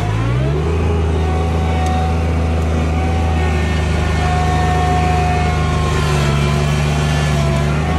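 John Deere 2305 subcompact tractor's three-cylinder diesel engine running hard, worked heavily by pulling a single 14-inch moldboard plow through the ground. Its pitch dips and picks back up right at the start, then holds steady.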